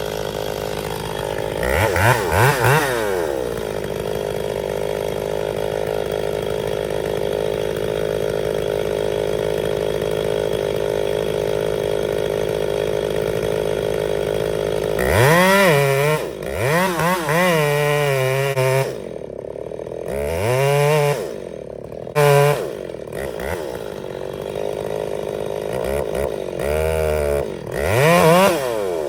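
Ported Echo 680 two-stroke chainsaw running steadily, with the throttle revved up and back down several times, about two seconds in and repeatedly in the second half.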